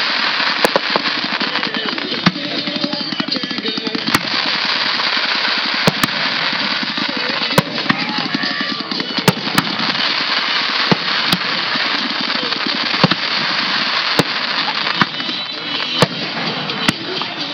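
Fireworks finale: a dense, continuous crackle with sharp bangs of bursting shells at irregular intervals, roughly every one to two seconds.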